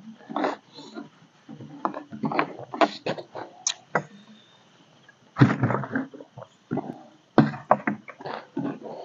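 Plastic bag rustling and crinkling in irregular bursts as it is handled and passed between hands, with two louder bumps about five and a half and seven and a half seconds in.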